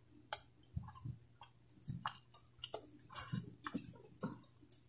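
Faint, irregular mouth sounds of a person chewing food with lips closed: soft wet clicks and low thumps, over a steady low hum.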